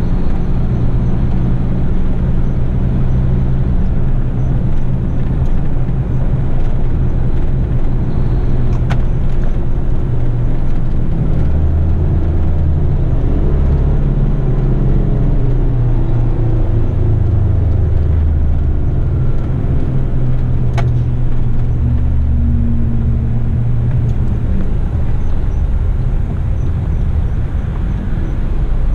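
Heavy rigid truck's diesel engine running under way, heard from inside the cab with road noise; the engine note shifts in pitch several times as road speed changes.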